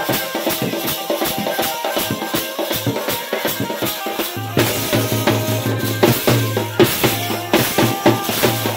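Fast, lively dance music driven by a dhol drum beaten in a quick, steady rhythm, with a low held bass note coming in about halfway through.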